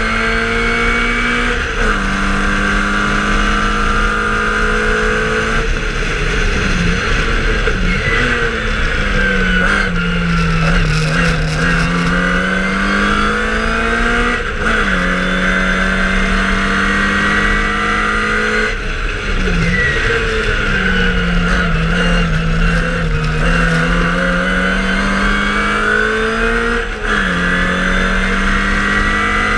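1963 MG Midget's four-cylinder engine running hard on a race lap. Its revs are held high for long stretches and step down abruptly at gear changes. Twice the revs sag for several seconds through a corner, then climb again under throttle.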